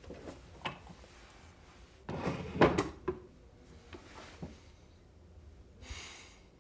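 Objects being handled on a wooden side table: a few light knocks, then a denser rattle and knock about two and a half seconds in, the loudest part. A short sliding swish follows near the end.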